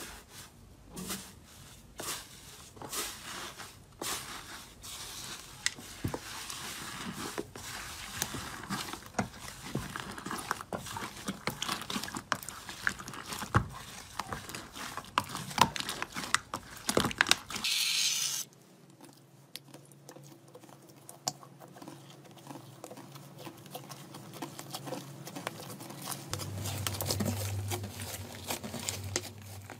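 Hands poking, pressing and kneading slime, a dense run of sticky crackles, pops and clicks. About two thirds of the way through it turns quieter and sparser as a softer slime is pressed, with a low hum underneath near the end.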